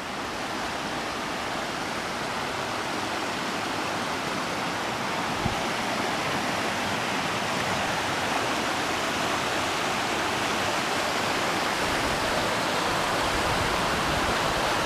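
Steady rush of water from the Sliding Rock waterfall and its creek, a dense even hiss that grows gradually louder. A single faint tap comes about five seconds in.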